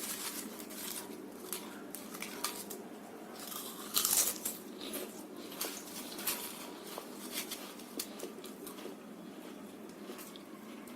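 Someone biting and chewing crispy chips close to the microphone: a string of sharp crunches, the loudest about four seconds in, thinning out to softer chewing later.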